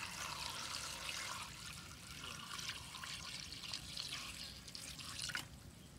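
Water poured in a steady thin stream into a cooking pot full of pork leg, chilies and herbs, trickling and splashing onto the food; the pour stops shortly before the end.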